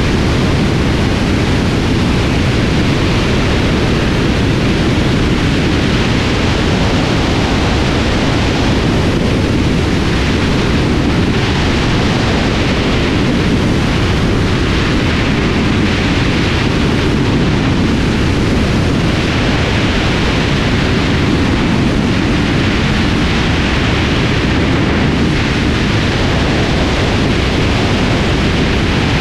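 Loud, steady wind rush over a microphone mounted on the outside of a Socata TB20 light aircraft in flight, with a low rumble beneath it and no distinct engine note standing out.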